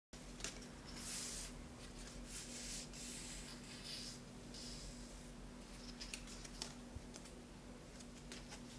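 Faint rustling and a few light clicks of paper and cardboard packaging being handled, over a faint steady hum.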